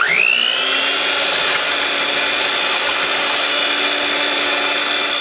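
Electric mixer with a balloon whisk attachment switching on and spinning up within a fraction of a second to a steady high whine, whipping heavy cream with sugar in a metal bowl at high speed.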